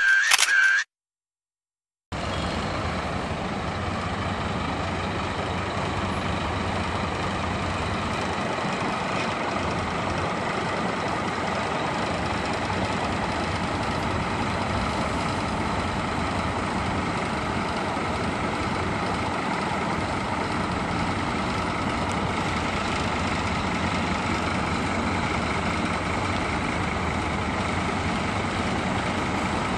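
A moment of music that cuts off, a second of silence, then a Marcopolo G6 coach's diesel engine idling steadily.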